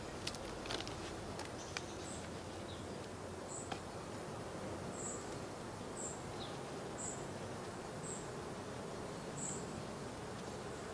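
Honeybees buzzing faintly around an opened queen-mating nuc, with a few light clicks as the small hive box is handled in the first few seconds. A short high chirp repeats about once a second.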